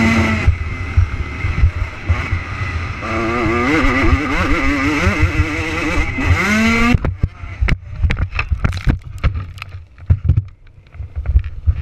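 Dirt bike engine revving on a motocross track, heard close up from a helmet camera, its pitch rising and falling with the throttle. About seven seconds in the engine note cuts off and a run of sharp knocks and thumps follows as the bike and rider go down in a crash.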